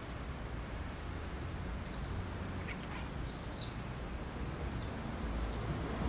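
Small bird chirping in the background, about six short high chirps spaced a second or so apart, over a steady low rumble.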